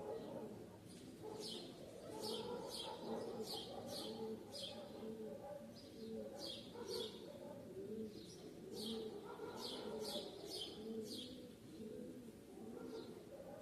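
Birds chirping: many short, quick high chirps in rapid series throughout, over lower, repeated cooing calls.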